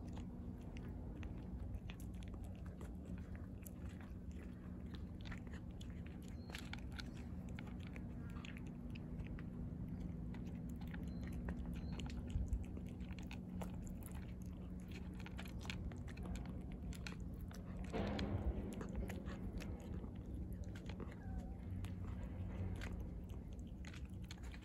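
A tortoiseshell cat chewing wet cat food and crunching dry kibble close to the microphone, with many small crunches throughout. A steady low hum runs underneath, and a brief louder noise comes about three-quarters of the way in.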